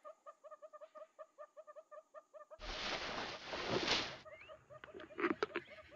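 A bird calls a fast, even series of short notes, about five a second, until about two and a half seconds in. Then a leopard feeds on an impala carcass: a second and a half of loud, rough tearing and rustling, followed by a few sharp cracks.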